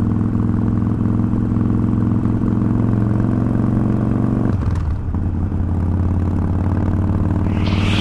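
Harley-Davidson V-twin engine running steadily at idle; its note shifts a little about halfway through, and a rising rush of noise begins near the end.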